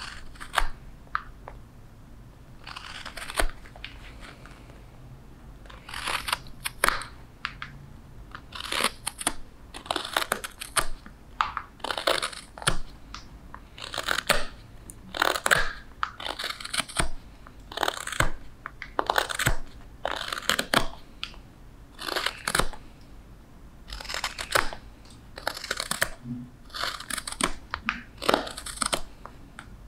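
Hook knife (spoon knife) slicing shavings out of the bowl of a wooden spoon: short rasping cuts, a few scattered in the first seconds, then about one a second.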